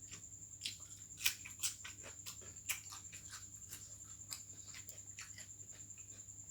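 Close-miked eating sounds: scattered wet clicks and smacks of a person chewing, the sharpest about a second and a quarter in, over a faint steady high whine.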